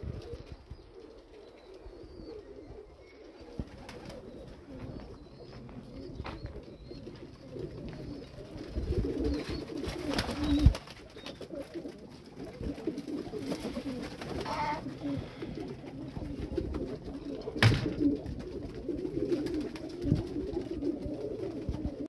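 Many pigeons cooing together in a loft, a dense overlapping mass of low coos that grows louder after the first third. A few sharp knocks cut through, the loudest about halfway through.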